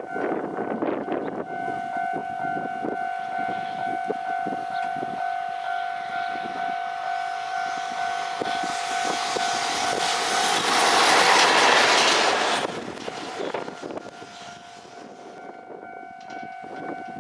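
JR Freight EF210 electric locomotive hauling a freight train past at speed, with wheels clacking over rail joints as it approaches. The pass-by is loudest about eleven to twelve seconds in, then fades quickly. A steady high tone sounds beneath it until the locomotive arrives.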